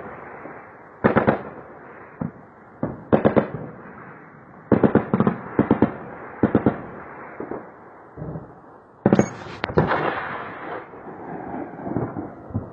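Distant weapons fire during a night bombardment: repeated short bursts of rapid, sharp reports, each trailing off in an echo, with the loudest and longest cluster about nine seconds in.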